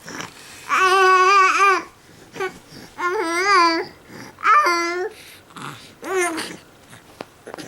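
A baby making long, drawn-out vocal calls, four in a row, each held under a second with a wavering pitch.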